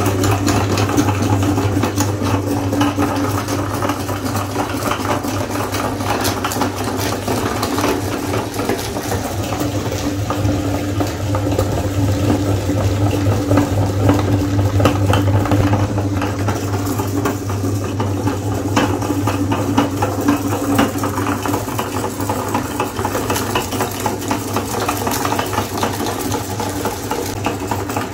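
Motor-driven meat grinder running steadily with a low hum. Its auger crushes and grinds coated ice cream bars, with a dense crackle of small clicks as the coating breaks.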